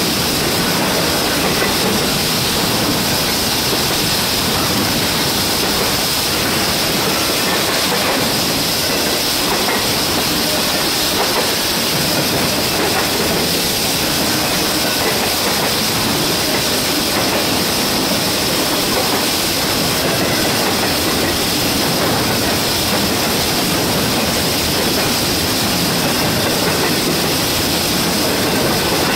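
Double-stack container freight cars rolling steadily past close by, with the continuous noise of steel wheels on the rails. Under it runs a steady high hiss from an air leak on a locomotive standing nearby.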